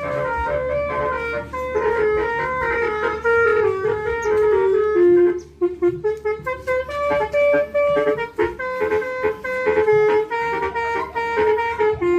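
Electric basuri melody horn playing a fast tune of short stepped notes with a reedy, clarinet-like tone, breaking off briefly about halfway through. A low hum runs underneath for the first two-thirds.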